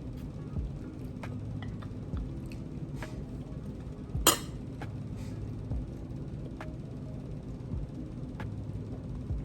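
Cutlery clinking against a plate while eating: a few light taps and one sharper clink about four seconds in, over a low steady hum.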